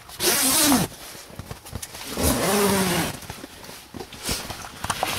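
Zipper of a pop-up hunting blind's door being pulled open: two long zips about two seconds apart, each with a whine that shifts in pitch.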